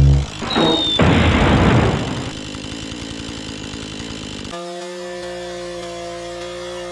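Husqvarna 435 two-stroke chainsaw running: the saw drops off at the start, gives a loud burst of noise about a second in, then runs quieter and settles into a steady even note from about four and a half seconds.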